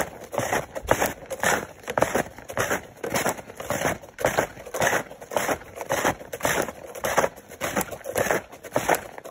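Walking footsteps crunching in packed snow with snowshoes, a steady rhythm of about two steps a second.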